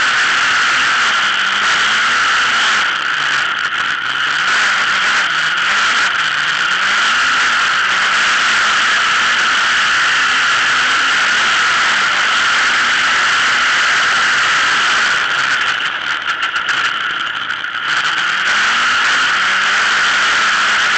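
Autocross buggy's engine at racing speed under a steady rushing noise, its revs rising and falling again and again through the corners. About three quarters of the way through the throttle briefly eases with a rapid crackle before it pulls again.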